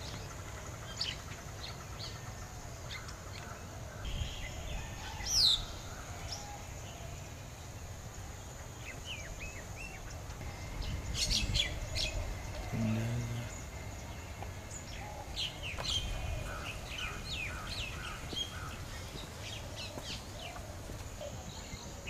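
Several small birds chirping and calling outdoors, with scattered short chirps and whistles, one loud falling whistle about five seconds in and a quick cluster of chirps around eleven seconds, over a steady faint high hiss.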